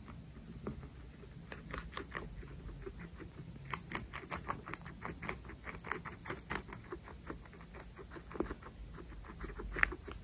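Guinea pigs nibbling and chewing a slice of banana with its peel on: a quick, irregular run of small clicks.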